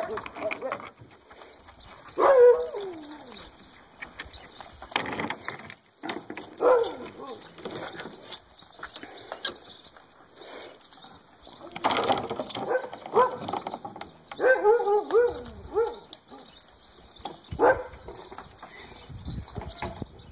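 Huskies in a sled dog yard giving short pitched calls, dog whines and yips, at scattered moments. Several calls fall in pitch, and the loudest comes about two seconds in.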